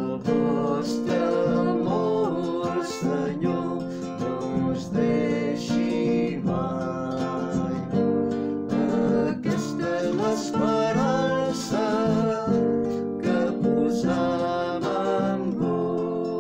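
Liturgical psalm music: acoustic guitar playing chords with a gliding melody line over them.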